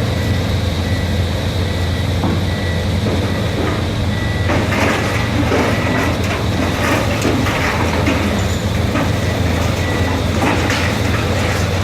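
Diesel engine of heavy demolition machinery running steadily under load. From about four and a half seconds in, irregular crunching and cracking of debris comes over it.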